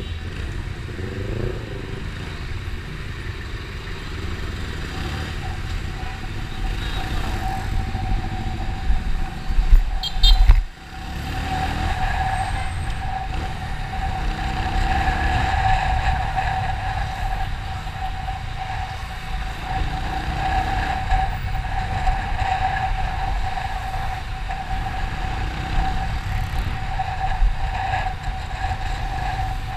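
Motorcycle riding in traffic: its engine running under wind and road noise on the bike-mounted camera's microphone, with a steady whine throughout. About ten seconds in there is a loud burst of wind noise that cuts off suddenly.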